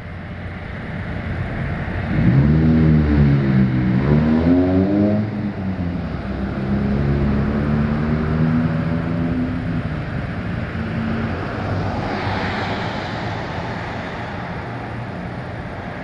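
A vehicle engine revs up and down about two seconds in, then runs at a steady pitch. A rush of noise rises near the end.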